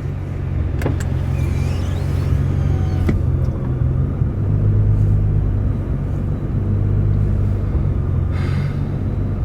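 Car engine idling with a steady low rumble, with a couple of light clicks in the first few seconds.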